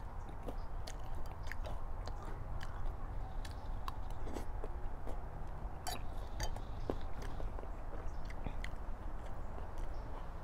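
A person eating from a bowl with a spoon: chewing and mouth sounds, with scattered sharp clicks of the spoon against the bowl, over a steady low rumble.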